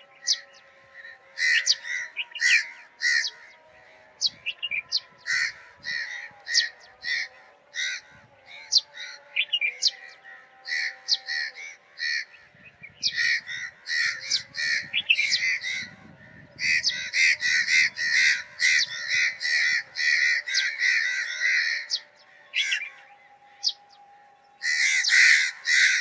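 A sparrow chirping: a long series of short, harsh chirps, some single and some in quick runs, with the fastest, densest chattering in the second half and again near the end.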